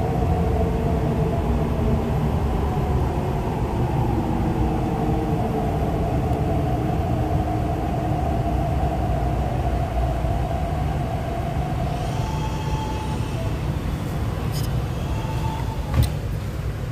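Interior of an MTR East Rail Line R-Train electric train running, a steady deep rumble of wheels on track with the traction motors' whine, whose pitch slowly drops. One sharp click near the end.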